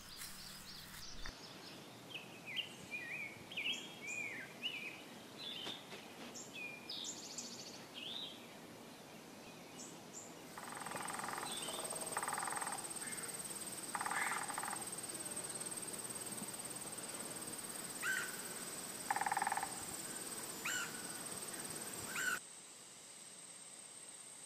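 Birds chirping for the first several seconds. From about ten seconds in, a steady high insect trill runs under short intermittent calls, and it stops abruptly near the end.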